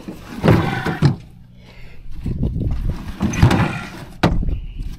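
Blue plastic feed troughs made from cut barrels being handled and turned over on the ground: irregular dull knocks and scraping, with one sharp knock about four seconds in.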